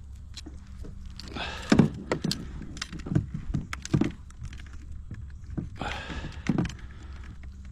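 Handling noises: irregular knocks, taps and rattles as a freshly landed bass and the angler's gear are handled, busiest about a second and a half in and again near six seconds.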